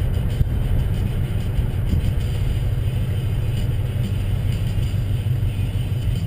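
2009 Mercury Grand Marquis's V8 through Stainless Works long-tube headers and a chambered cat-back exhaust, a steady low exhaust rumble heard inside the cabin while cruising at low speed. The exhaust is loud, which the owner finds too loud.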